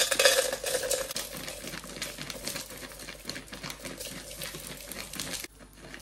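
Nature C3 soy wax flakes pouring from a plastic bag into a metal pouring pitcher: a dense patter of flakes hitting the metal along with the bag crinkling, loudest at first and stopping abruptly near the end.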